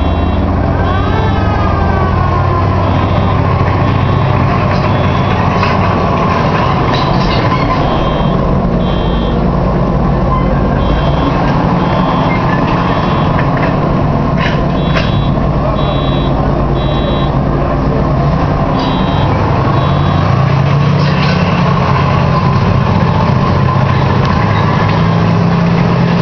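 M18 Hellcat tank destroyer's Continental R-975 nine-cylinder radial engine running under load as the vehicle drives and turns on grass, with a brief squeal about a second in. A high beeping in short clusters repeats every second or two over it.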